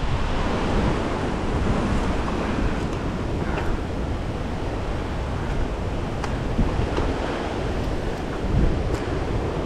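Wind buffeting the camera microphone on a mountain bike ridden fast around an asphalt pump track, with the tyres rolling on the asphalt and a few light clicks and rattles from the bike.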